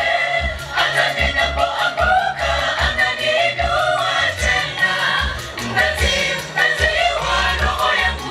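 Group of voices singing a gospel song together live, over a pulsing bass accompaniment.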